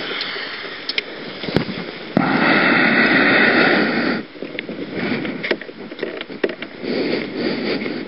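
Handling noise around a parked scooter in trampled snow, its engine off. A loud, even rush of noise begins about two seconds in and lasts about two seconds, followed by scattered small clicks and knocks.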